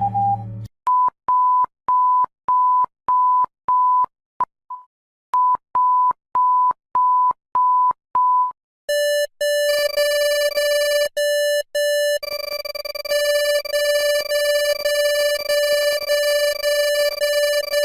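Synthesized electronic beeps, an Emergency Alert System alarm redone as beeping. A high, pure beep repeats about twice a second with a short break midway. About nine seconds in, a lower, buzzier tone takes over, cuts out briefly a few times, then holds steady.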